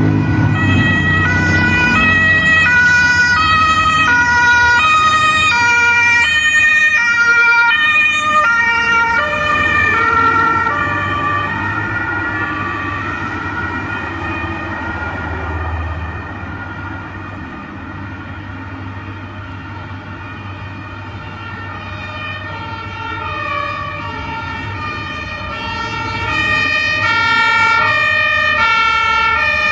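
Two-tone German fire-brigade sirens (Martinshorn) on several emergency vehicles of a turnout convoy, alternating high and low. They are loud at first, fade away in the middle, and grow louder again near the end as more fire engines approach. Street traffic runs underneath.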